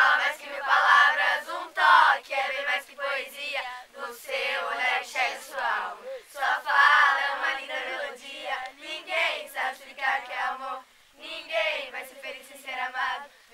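A group of young voices, many of them girls', singing a song together.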